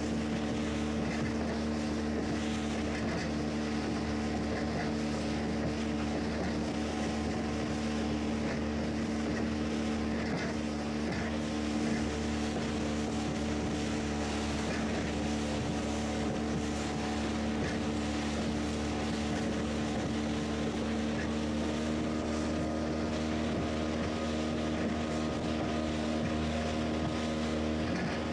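Motorboat engine running steadily at speed, a constant drone, under the rush of water and spray along the hull and wind on the microphone.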